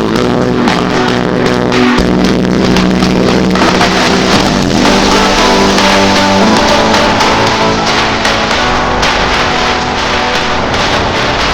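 Background music with guitar and drums, loud and steady, with a vehicle's running faintly beneath it.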